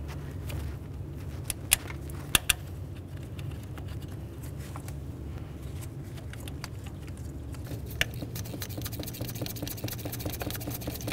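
Ratchet wrench running the fuel rail's 10 mm mounting bolts in: a few sharp metal clicks, then fast, even ratchet clicking over the last few seconds, over a steady low hum.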